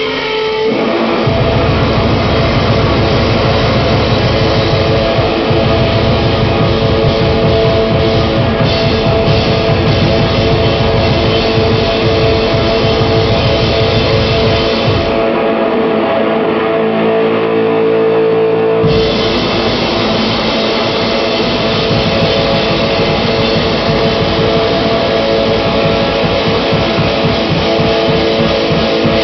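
Loud live rock band playing: drum kit, electric guitar and keyboards over a held synth-like tone. The drums and low end drop out for about four seconds past the middle, then come back in full.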